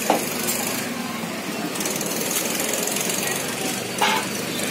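One heavy chopping blow into a large rohu fish right at the start, then a steady engine-like rumble, with a short sharp clink about four seconds in.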